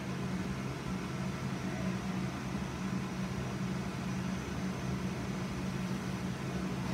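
Kitchen fan running with a steady low hum over an even hiss.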